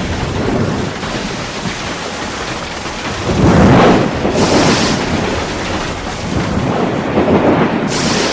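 A continuous thunder-like rumble with a rain-like hiss, swelling louder about three seconds in and again near seven seconds, with a brief sharp hiss around four and a half seconds.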